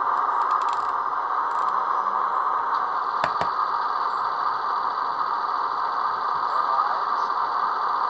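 The sampled diesel engine sound of a class 106 (DR V 60) shunting locomotive running steadily, played by the sound decoder through the H0 model's small loudspeaker, thin and with little bass. A couple of sharp clicks come about three seconds in.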